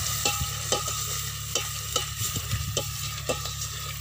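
Chopped onions, green chillies and tomato sizzling as they fry in a steel pot, stirred with a steel ladle that scrapes and clicks against the pot about twice a second.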